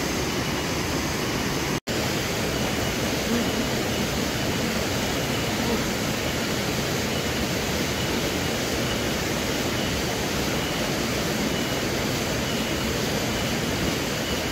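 Steady, even rushing noise, like running water, that cuts out for a split second about two seconds in. A faint high tone repeats evenly above it.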